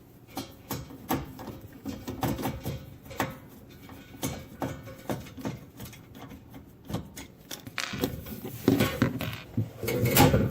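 Irregular clicks and knocks of a screw being taken out of a dishwasher's access panel and the panel being handled, with denser rubbing and scraping over the last couple of seconds.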